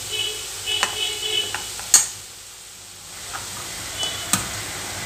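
Oil and vegetables sizzling in a hot pan as cooked rice is tipped and scraped in from a steel plate. There are sharp clinks of metal on the pan about two seconds in and again near the end. The sizzle quietens briefly after the first clink.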